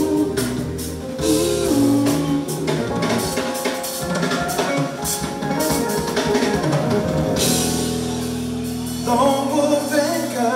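A live band playing jazz-funk: electric bass lines over a drum kit with busy cymbals, with keyboards filling in. A man's voice starts singing about nine seconds in.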